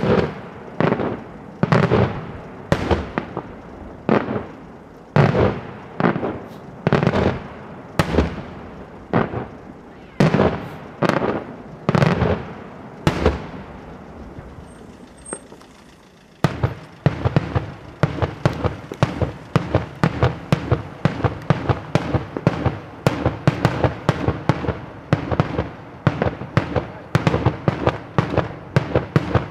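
Daytime aerial fireworks shells bursting in loud bangs, about one a second. After a short lull just past the middle, a rapid volley follows, several bangs a second.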